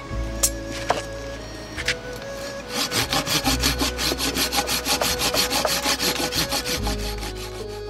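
Hand saw cutting through wood with rapid back-and-forth strokes, several a second. The sawing starts about three seconds in and stops near the end.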